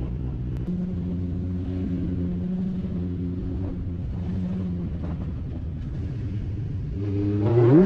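Suzuki Bandit 1200S's inline-four engine running steadily under way. About seven seconds in, the revs climb sharply and it gets loudest as the throttle is opened.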